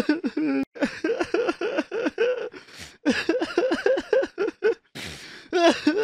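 A person crying in broken sobs: two runs of short, quick sobs, several a second, with a brief catch of breath between them about three seconds in.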